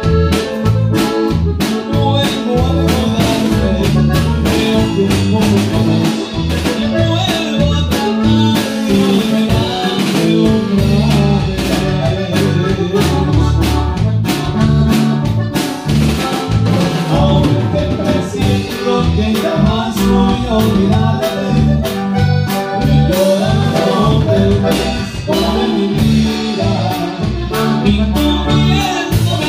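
Norteño band playing live: button accordion, bajo sexto, electric bass and drum kit keeping a steady beat, with a man singing into a microphone.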